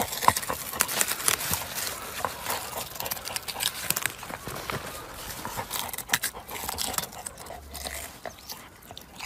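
A dog rooting in leafy garden plants and soil, sniffing and mouthing a white root vegetable: continuous rustling and crackling broken by many sharp, irregular clicks.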